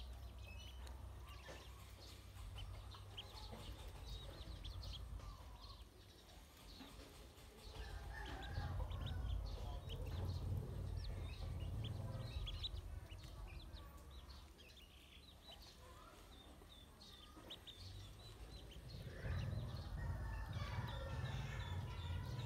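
A group of ducklings peeping constantly, in many short, high chirps. A low rumble swells under them twice, about a third of the way in and again near the end.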